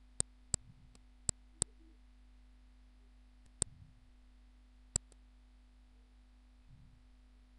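Computer mouse buttons clicking, about seven short sharp clicks, several in quick succession near the start and a few more over the next few seconds, over a steady low electrical hum.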